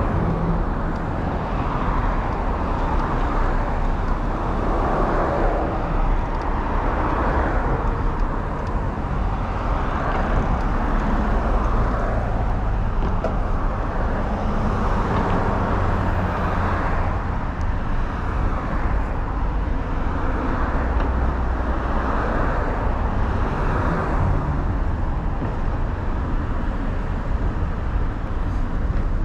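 Wind and road noise from riding a Talaria Sting R MX4 electric dirt bike: a steady low rumble on the microphone with a rushing noise that swells and fades every few seconds.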